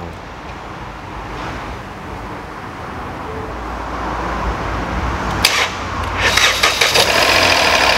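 Ford EcoSport 1.5 three-cylinder engine being started after a timing-belt job: it catches about five and a half seconds in and runs with a fast knocking from the VVT cam phasers, which rattle for a few seconds because they are drained of oil pressure.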